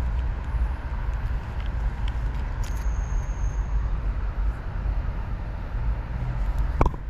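Steady low outdoor rumble with no clear single source, a brief thin high whistle about three seconds in, and a few sharp clicks near the end.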